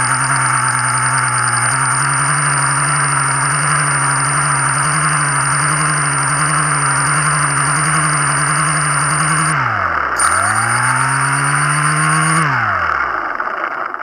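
Motor of a downed FPV freestyle drone running steadily with a high whine. Near ten seconds in its pitch drops sharply and then climbs back. It then winds down and stops.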